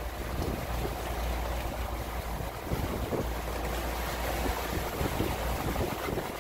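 Wind gusting over the microphone, with waves washing past the hull of a sailboat under sail.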